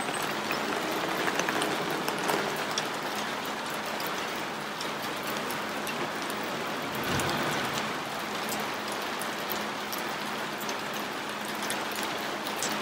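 Heavy rain falling steadily, with scattered drop ticks, and tyre hiss from traffic on the wet street that swells briefly about seven seconds in.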